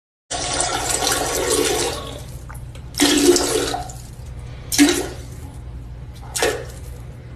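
Rushing water that starts suddenly and eases after about two seconds, followed by four short voice-like sounds about every second and a half to two seconds.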